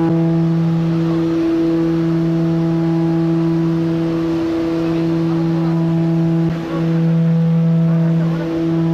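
Propeller-driven jump plane's engine droning steadily as heard inside the cabin, one constant pitch with its overtones and a brief dip about two-thirds of the way in.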